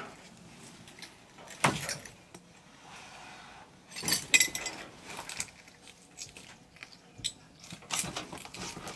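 Irregular knocks, clatters and scrapes of loose wood boards and brick rubble shifting under someone crawling through a collapsed structure.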